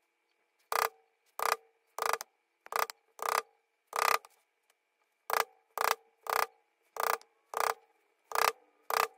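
A mallet striking a square steel leather stamp held on baseball-glove leather over a wooden board: about thirteen sharp taps, each with a brief metallic ring, in two runs of steady blows with a pause of about a second between them.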